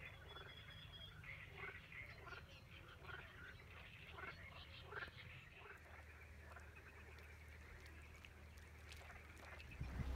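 Faint chorus of many short animal calls, busiest in the first half, over a low steady hum. Near the end a much louder low rumble of wind on the microphone cuts in.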